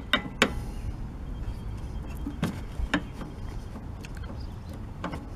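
Sharp metallic clicks of a car hood latch's jaws being worked back and forth: two close together at the start, two more around the middle and one near the end, over a low steady rumble.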